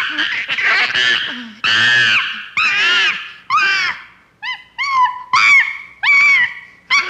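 Chimpanzee screeching: long, loud, arching screams, then after about four seconds a run of shorter calls that rise and fall, about two a second, getting fainter.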